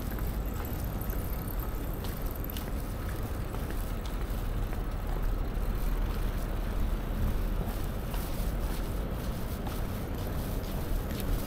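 Steady low rumble of riding a bicycle on pavement: wind on the action camera's microphone mixed with the tyres rolling, with a few faint clicks.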